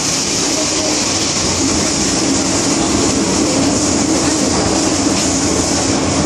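Inside an MTR M-Train electric multiple unit running at speed through a tunnel: steady wheel-on-rail running noise with a hiss and a low hum, holding level.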